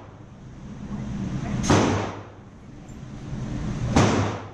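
Two gunshots about two and a half seconds apart, part of a steady run of single shots.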